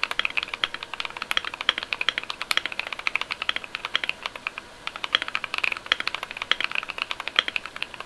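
Fast, continuous typing on a foam- and tape-modded Keychron Q1 mechanical keyboard with a polycarbonate plate, lubed and filmed Durock T1 POM Sunflower tactile switches and Akko Waves PBT ASA-profile keycaps. Keystrokes come several a second without a break.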